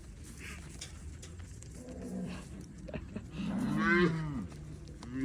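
Calves mooing: a soft low moo about two seconds in, then a louder, longer bawl that bends in pitch around four seconds, and a short call at the end.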